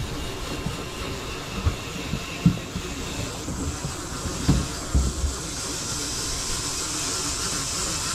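Steady hissing rush on a fishing boat's deck, with a few dull thumps and knocks during the first half.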